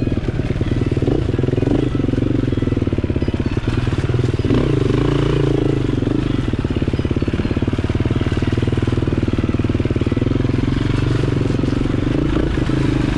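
Dirt bike engine running steadily, with a slight shift in pitch about four to five seconds in.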